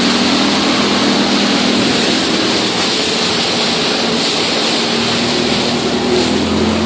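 Outboard motor of a small boat running steadily under way through rough water, with a constant rush of wind and water over it.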